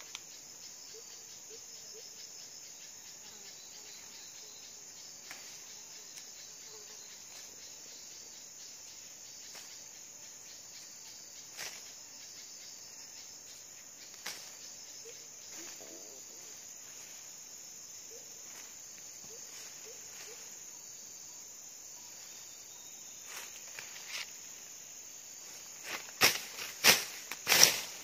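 Steady high-pitched insect chorus of the tropical rainforest, with a few scattered clicks and a quick run of several loud, sharp knocks near the end.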